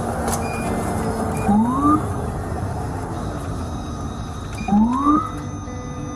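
Police patrol car siren giving two short rising whoops about three seconds apart, the signal for the car ahead to pull over. Under them is the steady running noise of the patrol car, heard from inside its cabin.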